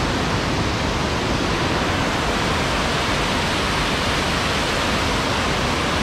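Waterfall and rocky stream rushing: a loud, steady wash of white water. The stream is swollen and muddy after heavy rain.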